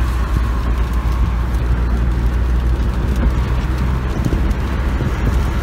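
Inside the cab of an Opel Vivaro van driving in fourth gear: a steady low engine drone with road noise.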